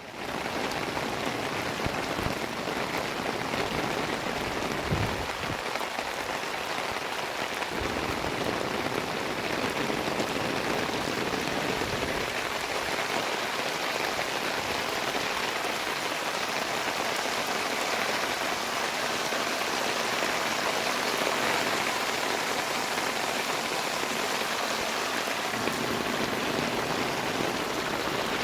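Steady downpour of hurricane rain from Hurricane Harvey pattering on surfaces, a constant even hiss, with a few brief low thumps in the first dozen seconds.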